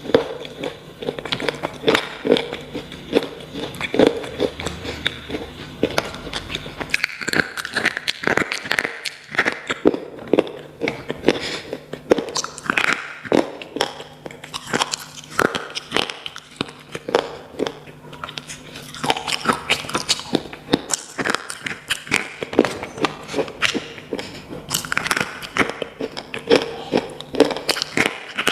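Slate pencils being bitten and chewed: a dense, irregular run of sharp crunches and cracks, several a second.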